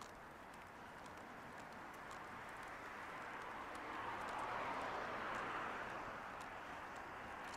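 A car passing on the street, its tyre and road noise swelling to a peak about halfway through and then fading, with faint footsteps ticking on the pavement.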